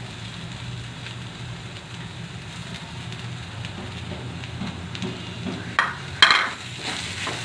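Spatula stirring and scraping masala in an oiled frying pan while it sizzles faintly over a steady low hum. A few sharp clacks of the spatula against the pan come about six seconds in.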